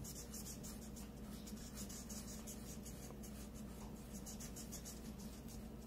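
Felt-tip markers scratching on paper in quick, repeated back-and-forth colouring strokes, faint.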